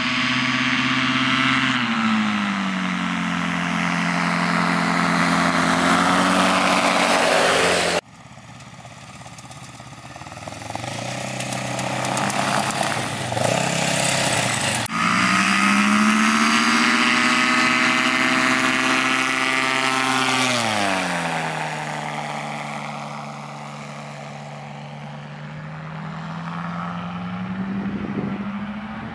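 Yamaha Phazer snowmobile engine and propeller of a Kolb Firestar ultralight running hard as the plane goes past on a grass strip, its pitch dropping each time it passes. The sound jumps abruptly about 8 and 15 seconds in, then falls away with distance near the end.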